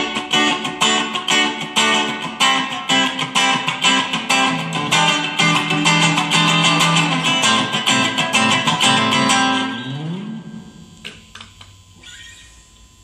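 Stratocaster-copy electric guitar on its bridge pickup, played through a Fender Mustang modelling amp set for a clean Twin Reverb-style tone: a fast run of picked notes for about ten seconds, ending in a slide and dying away, followed by a few faint string plucks.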